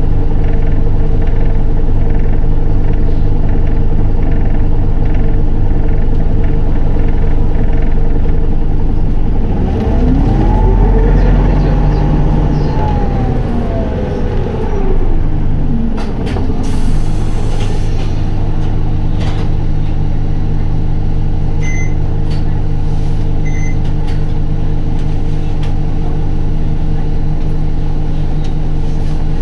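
Isuzu Erga city bus (2PG-LV290N3) heard from inside, its diesel engine running with a steady drone. About ten seconds in, the engine pitch climbs, holds and falls back over a few seconds; a short air hiss follows, then two short high beeps.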